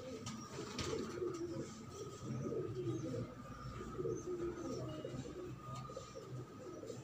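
Several domestic pigeons cooing, a continuous low warbling of overlapping coos. A faint steady high tone runs behind it.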